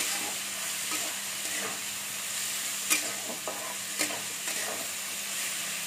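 Shredded cabbage sizzling in hot oil in a metal kadai while a flat metal spatula stirs it, with a few sharp scrapes and knocks of the spatula against the pan, about three and four seconds in.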